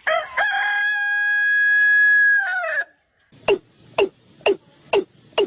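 A rooster crowing once: one long call held for about two seconds, then falling away at the end. After a short pause comes a run of short downward-sweeping calls from another bird, about two a second.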